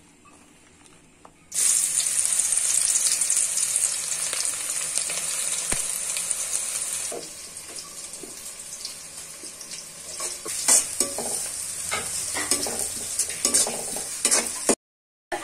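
Sliced onions going into hot oil in a pan: a sudden loud sizzle starts about a second and a half in and eases after a few seconds. Near the end a utensil clicks and scrapes against the pan as the frying onions are stirred.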